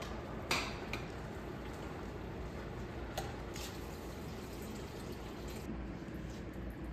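Water poured from a jug into a hot pot of rice on the stove. A sharp clink comes about half a second in, and a couple of lighter clicks about three seconds in.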